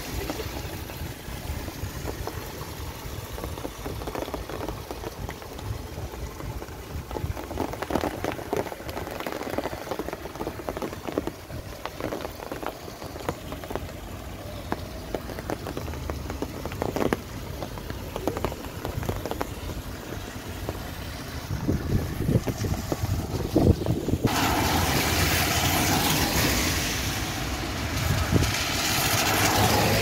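Strong wind buffeting the microphone: a steady rumble with gusts and short knocks. Near the end a loud steady hiss starts abruptly and runs on for several seconds.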